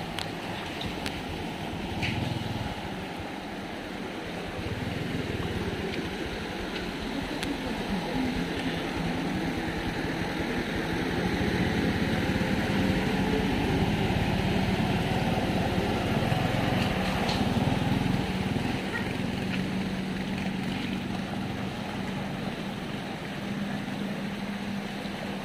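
Cars driving slowly through floodwater, their engines running under a continuous wash of water churned up around the wheels. It grows louder in the middle, and a steady engine hum holds through the second half.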